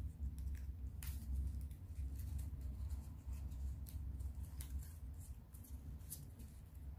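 Colored origami paper being folded and creased by hand: short, irregular scratchy rustles and crinkles over a steady low hum.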